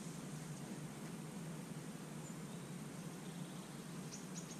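Steady low background noise outdoors, with a few faint, high bird chirps near the end.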